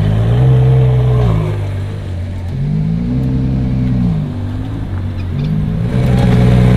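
Ferrari Daytona SP3's 6.5-litre naturally aspirated V12 revved twice, its pitch rising and falling back each time. After a short blip it settles into a steady idle near the end.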